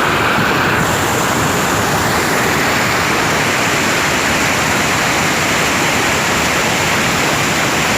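Waterfall's falling water rushing loudly and steadily.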